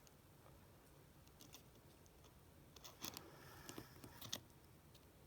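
Faint small clicks and taps from handling an iPhone 7's rear camera module while pressing it into place, bunched about three to four and a half seconds in; the camera is not seating all the way down.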